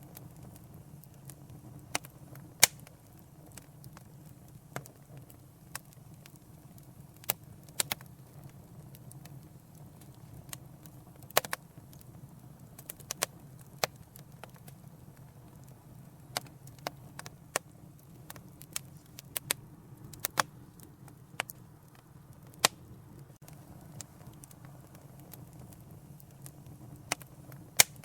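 Wood fire crackling and popping in a fireplace: sharp, irregular pops a second or two apart over a soft, steady rumble of flame.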